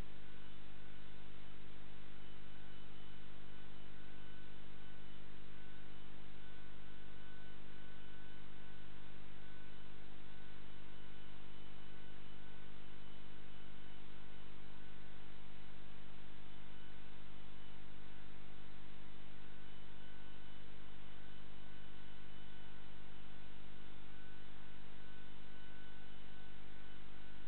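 Steady electrical hum with several constant tones over an even hiss; no ball strikes are heard.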